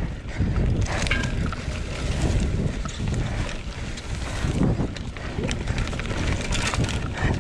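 Wind buffeting the microphone: a low rumble that swells and fades irregularly, with a few faint ticks.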